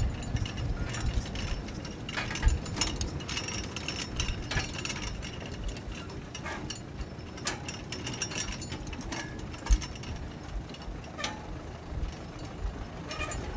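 Irregular metallic clicking and clinking of a hand-worked mechanism, over a steady low rumble.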